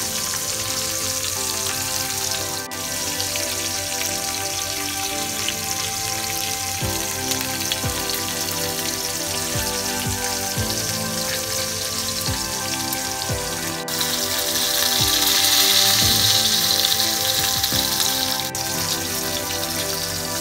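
Hot oil sizzling steadily around a whole chicken pan-frying in a cast iron skillet, the sizzle swelling louder for a few seconds past the middle. Background music plays underneath.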